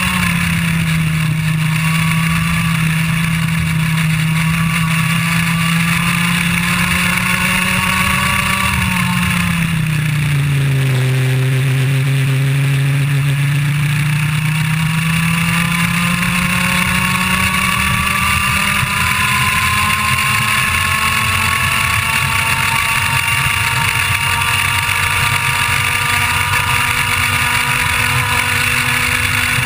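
IAME Leopard 125cc two-stroke kart engine running at high revs. Its pitch falls about nine seconds in as the kart slows for a corner, then climbs steadily back up as it accelerates toward about 14,500 rpm.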